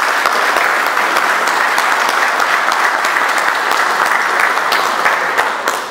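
Audience applauding steadily, many hands clapping together, dying away near the end.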